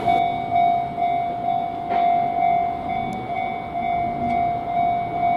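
Japanese level-crossing warning bell ringing: the electronic "kan-kan" alarm, one steady, repeating, pulsing tone.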